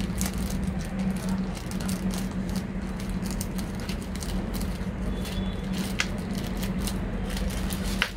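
Crinkling and rustling of a small white wrapper packet being unfolded by hand, in short scattered crackles over a steady low hum.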